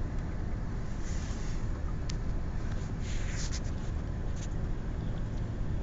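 Steady low rumble inside a pickup truck's cab as a storm carries on outside, with a single sharp tick about two seconds in and a brief hiss about three seconds in.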